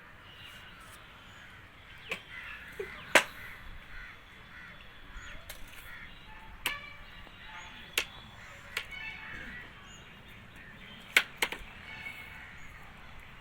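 Low background noise broken by about seven sharp clicks or taps, two of them close together near the end, with faint bird calls in the background.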